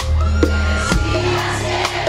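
Live band music with a strong bass line and a few drum hits.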